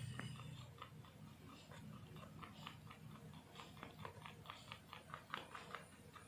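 Albino rabbit chewing rice from a plate: faint, quick clicks of nibbling, several a second.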